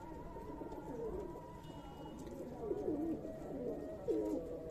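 Domestic pigeons cooing, several low wavering coos one after another.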